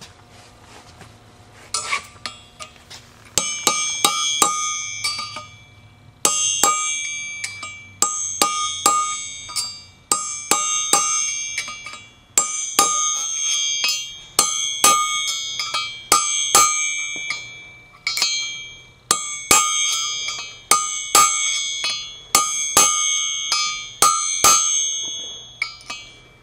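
Hammer blows driving the timing gear onto the snout of a Chevy 350 crankshaft. The strikes come in quick clusters with short pauses, and each one leaves the steel ringing like a bell.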